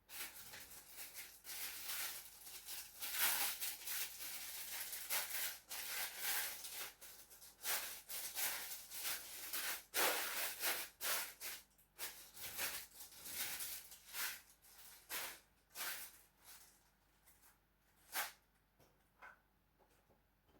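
Knife cutting through a watermelon: a quick run of rasping, scraping strokes that thins out after about 16 seconds, with one last stroke a couple of seconds later.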